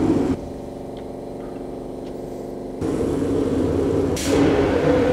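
Vapour blasting gun in an aqua blasting cabinet spraying water-and-media slurry at a metal water pump, a loud rushing hiss. The blast stops briefly under half a second in, leaving the machine's steady motor hum, and resumes after about three seconds, turning brighter and hissier near the end.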